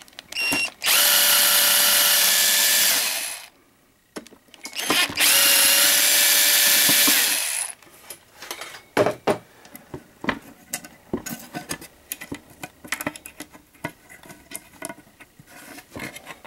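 Cordless battery drill with a T25 Torx bit running in two bursts of about two and a half to three seconds each, backing out the screws of a two-way radio's metal bottom cover. Scattered clicks and knocks follow.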